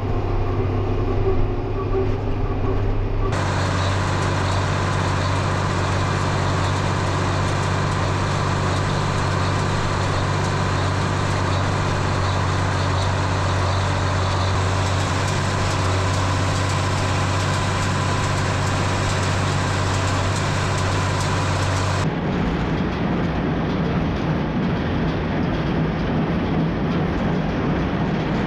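Tractor engine running steadily under load while pulling a hay baler, with a dense machinery clatter over the engine's low hum; the sound changes abruptly about three seconds in and again near twenty-two seconds.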